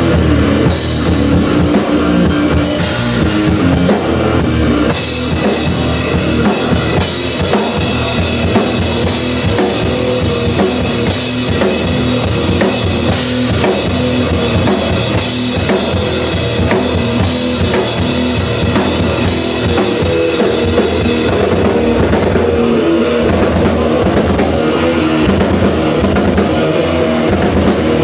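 Live rock band playing: electric guitar over a drum kit with a steady kick-drum beat and cymbals. The cymbal wash thins to separate hits near the end.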